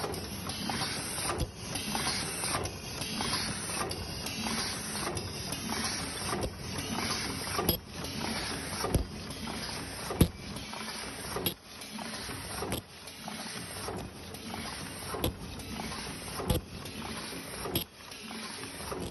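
Paper cup lid forming machine running: a steady mechanical clatter with a sharper knock repeating about every one and a quarter seconds.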